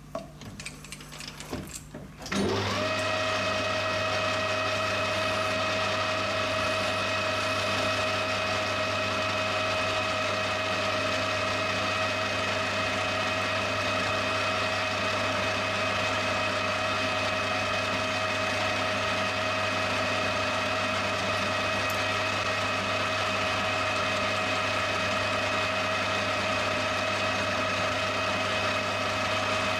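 A few light clicks and handling noises, then a metal lathe comes up to speed about two seconds in and runs steadily: a constant hum with a steady whine over it.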